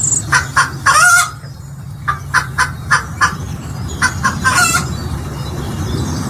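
Chicken clucking: two runs of short clucks, each ending in a longer drawn-out call.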